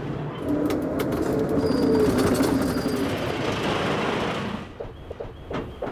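Pilatus cog railway railcar's automatic brake engaging on the descent: a few clicks, then a loud grinding noise with two steady low tones that cuts off after about four and a half seconds as the car halts.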